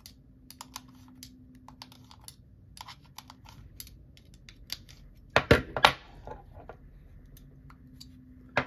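Small metal clicks and scrapes of needle-nose pliers working on the rear of a gas-blowback rifle bolt, with a louder clatter about five and a half seconds in.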